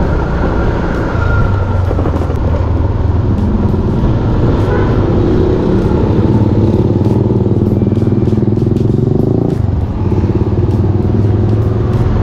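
Motorcycle engine running under way on the road, its pitch shifting up and down with the throttle and a brief drop in level about ten seconds in, like a gear change.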